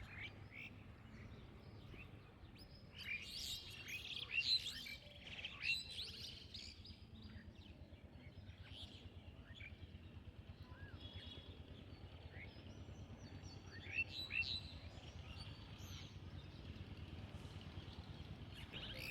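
Wild songbirds chirping and tweeting: many short high chirps, thickest about three to six seconds in and again around fourteen seconds, over a faint steady low rumble of background noise.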